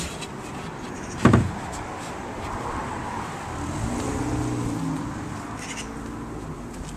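A hard knock about a second in as the hinged plywood bed panel is moved, then the low hum of a passing car that swells and fades around the middle.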